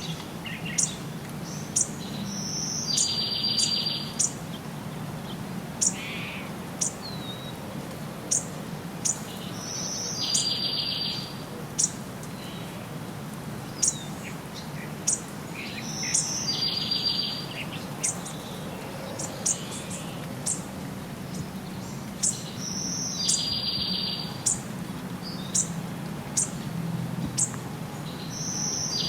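Wild birds calling: short, sharp, high chirps repeated throughout, and a buzzy trill about a second long that comes back every six or seven seconds, over a steady low background hum.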